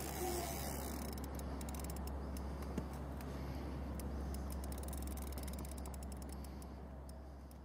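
Spinning reel's drag paying out line as a big catfish runs: a steady buzz of fine rapid clicks that fades toward the end.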